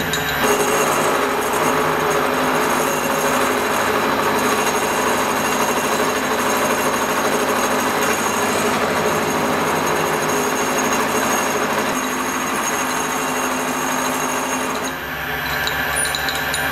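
Vertical milling machine running with its cutter cutting into a metal workpiece as the table is hand-fed: a steady, dense machining noise with a ringing whine in it. Near the end the cutting noise thins out and drops a little.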